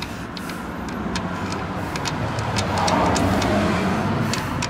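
A motor vehicle going past, its engine noise swelling to a peak about three seconds in and then easing. Over it come several light metal clicks from a spark plug being handled in a stripped spark plug hole in an aluminium outboard head.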